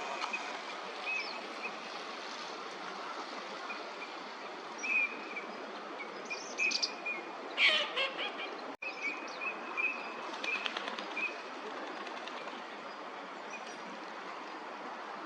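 Eurasian teal calling: short high whistled notes repeated on and off, with a louder call about halfway through, over steady background noise.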